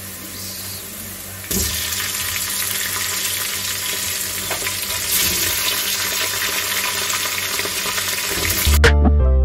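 Boiled mutton pieces going into hot cooking oil and fried onions, sizzling, with the hiss jumping up abruptly about a second and a half in as the meat hits the oil. Background music with a beat comes in near the end.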